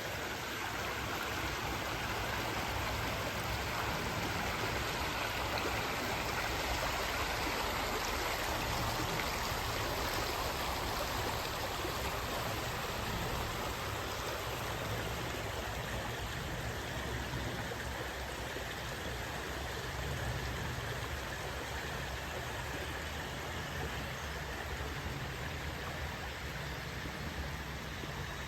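Stream water flowing steadily, a continuous rushing and babbling.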